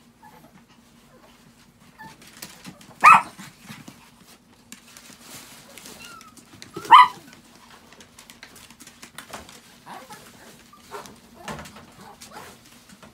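Chihuahuas barking: two short, sharp barks, about three and seven seconds in, over scattered light clicks and scrabbling.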